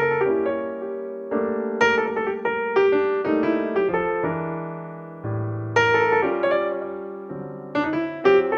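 Background piano music: solo piano playing struck chords and melody notes that each ring and fade.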